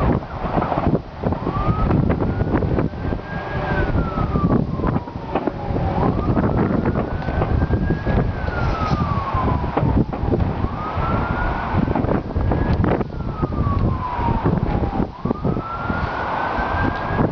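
Emergency vehicle siren on a slow wail, rising and falling in pitch about every four and a half seconds, over heavy wind rumble on the microphone.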